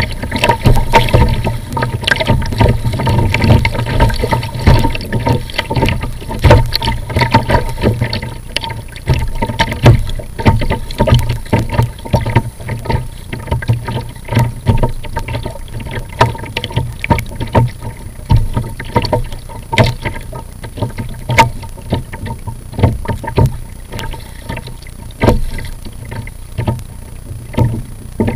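Choppy water slapping and splashing against a plastic sit-on-top kayak hull, with many irregular knocks over a heavy low rumble of wind on the microphone.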